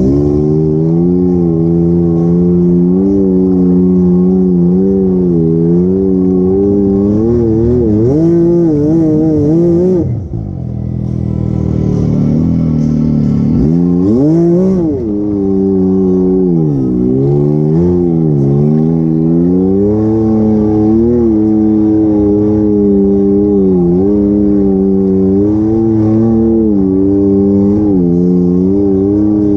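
Can-Am Maverick side-by-side engine running as it drives a rocky trail, its pitch rising and falling with the throttle. About ten seconds in it drops off the throttle briefly, then revs back up sharply and settles into a steady pull.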